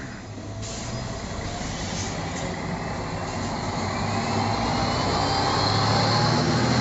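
Articulated city bus pulling away close by, its engine hum and a drivetrain whine rising in pitch and loudness as it gathers speed.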